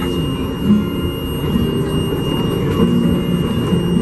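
R62A subway car running on elevated track: traction motors and wheels on rail give a steady rumble with shifting low tones. A steady high-pitched alarm tone sounds throughout; it is the car's emergency alarm, set off when the cover of the emergency brake was lifted.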